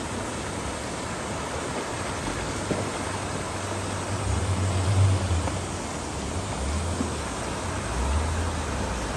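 Off-road vehicle driving, a steady rush of road and wind noise with a low engine drone that swells and fades several times.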